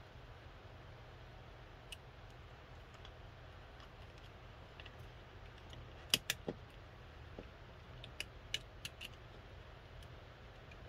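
Small sharp clicks of alligator test clips and leads being handled and clipped onto an air-conditioner control board: a few about six seconds in, then a quick run of four about two seconds later, over a steady low hum.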